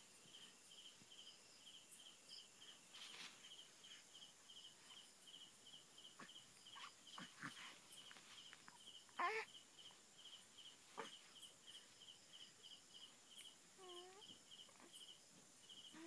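Very quiet night room tone with a cricket chirping steadily, about three chirps a second. About nine seconds in, the baby makes one short, soft falling vocal sound.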